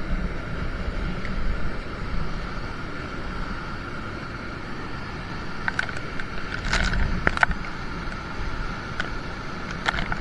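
Wind buffeting a phone microphone while walking through rough wet grass, a steady rumble with a few footstep scuffs and clicks about six to seven seconds in and again near the end.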